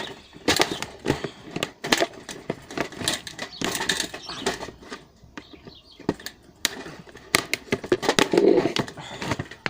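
Toaster casing being forced apart by hand and screwdriver: a run of irregular cracks, clicks and scrapes, busiest and loudest about eight seconds in as the part gives way.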